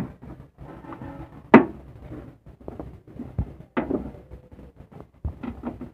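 Plastic trim removal tool prying at a car's trunk-lid liner: scraping and rustling with small clicks, and two sharp pops, about one and a half seconds in and near four seconds, as push-in trim clips come free.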